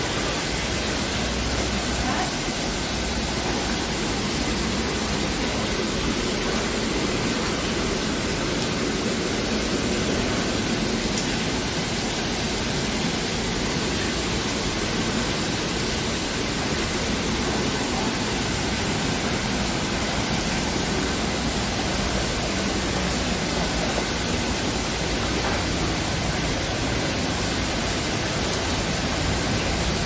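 Steady rushing of a waterfall and the river flowing through a rock gorge, an even, unbroken water noise.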